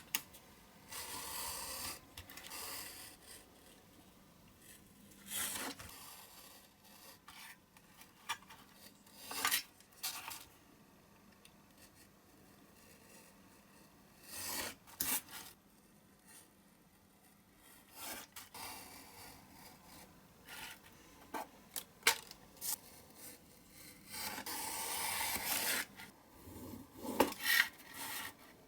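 Hand work on a small diecast toy model: irregular rasping, rubbing strokes lasting a second or two each, with scattered small clicks and taps between them.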